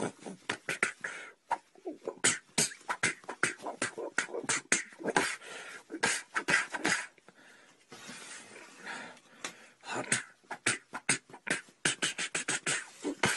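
A fast run of martial-arts fight sound effects: quick punch and strike hits, some in rapid volleys, with short swishing whooshes between them.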